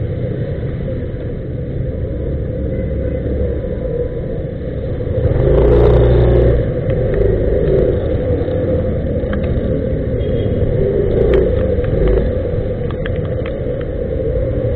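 Motor scooter engine running at low speed with a steady low rumble, growing louder for about a second some five seconds in as the scooter pulls forward.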